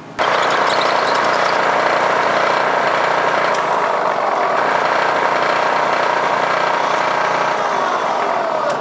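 Drilling machine running steadily, drilling out the stripped drain-bolt threads in an aluminium engine case ahead of tapping for a helicoil. It starts suddenly and dips briefly at the very end.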